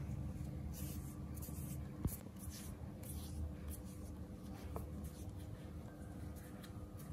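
Hands rubbing and stroking a baby monkey's fur and arm in a massage: soft, irregular brushing strokes. A single small click about two seconds in.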